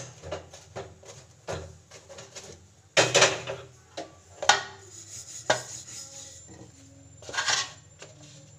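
Pots, pans and kitchen utensils being handled: a string of separate clicks and clunks, with longer clattering bursts about three seconds in and again near the end.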